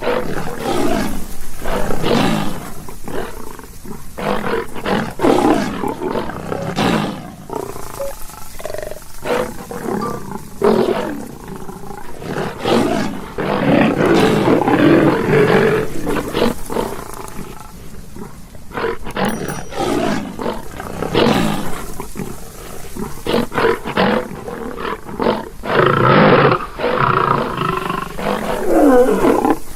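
Lion (Panthera leo) roaring: a long run of deep roars and grunts, one after another with short gaps between them.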